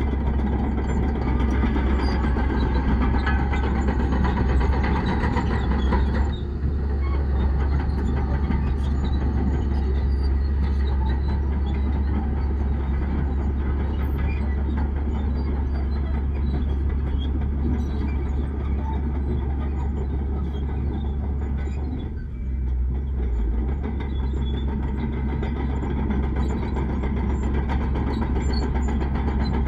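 Heavy diesel earthmoving machinery running steadily with a deep engine rumble. The sound dips briefly about six seconds in and again around twenty-two seconds in.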